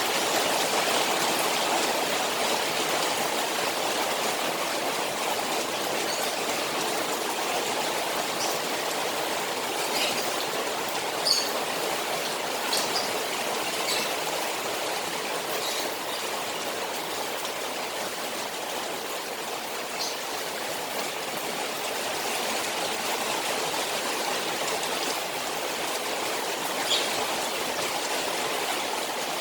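Steady rain on a koi pond mixed with running water, an even rush with a few sharper drips now and then.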